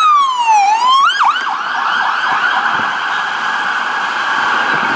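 Police car's electronic siren: a wailing tone sweeps down, gives a few quick whoops about a second in, then switches to a rapid warbling yelp that holds steady.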